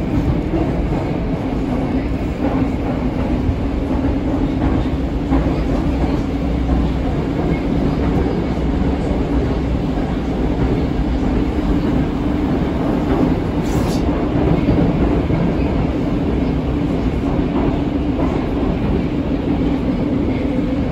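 Moscow metro train running at speed between stations, heard from inside the carriage: a steady, loud rumble of wheels and running gear on the track, with a constant hum underneath.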